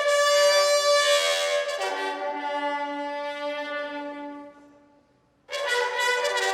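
A brass instrument plays long held notes: a higher note, then a lower one held for about two and a half seconds and fading away, then after a brief gap a new note starts near the end.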